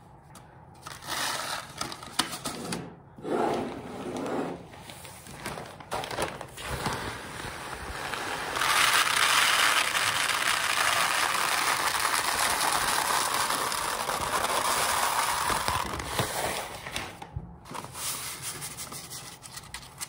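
Dried lentils poured from a plastic bag through a rolled paper funnel into a glass jar: a steady rush of falling grains for about seven seconds in the middle, the loudest sound. Before and after it, paper and the plastic bag rustle and crinkle in short bursts.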